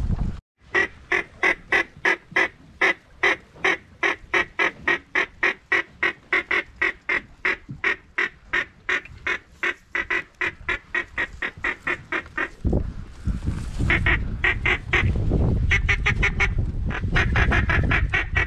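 A duck call blown in a long run of quick, evenly spaced quacks, about three a second, slowly tapering off. Near the end a low wind rumble on the microphone comes in while shorter bursts of quacking go on.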